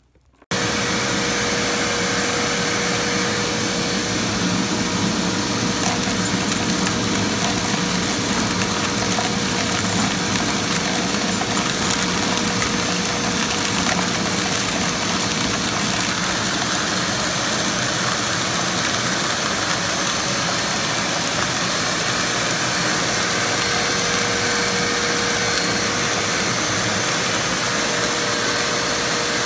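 Shop vac running steadily, drawing air through a homemade air-column separator: a constant rush of air with a steady whine. Scattered ticks come from cracked black walnut pieces knocking about inside the column. The sound starts abruptly about half a second in.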